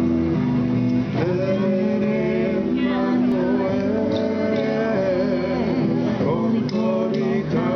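A song with voices singing over guitar accompaniment.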